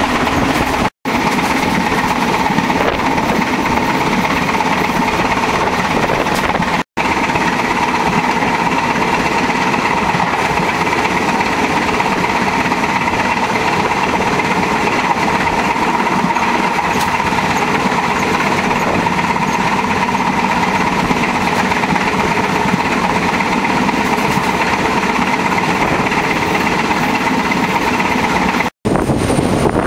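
Diesel-hauled passenger train running at speed, a loud steady noise of the wheels on the rails and the moving train, broken by three brief dropouts.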